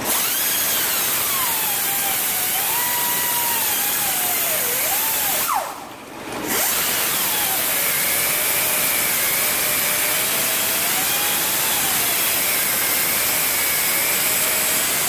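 Air-powered sander pressed against a freshly machined brake rotor spinning on a brake lathe, putting the unidirectional swirl finish on the braking surface. A steady abrasive hiss with a whine that wanders up and down in pitch as the load changes; it stops for about a second around five and a half seconds in, then runs on.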